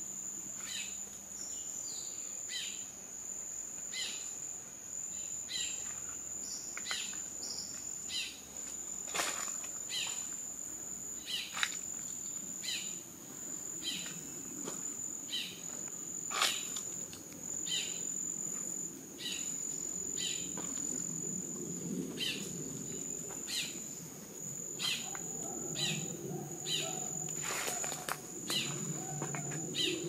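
Tropical rainforest ambience: a steady high-pitched insect drone, with a bird repeating a short falling call about once a second. A few sharp clicks stand out, and a low rumble builds in the second half.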